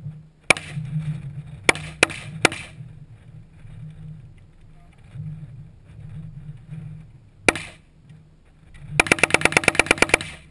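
Rifle shots: four single shots in the first two and a half seconds and another about 7.5 s in, then a rapid string of about a dozen shots at about ten a second near the end.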